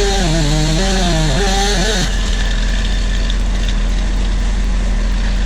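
A large engine running steadily and loudly. A wavering pitched whine rides over it until about two seconds in, then stops.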